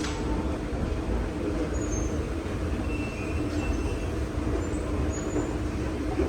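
Steady low rumble of passing vehicles, with a steady hum and a few faint, short high-pitched chirps.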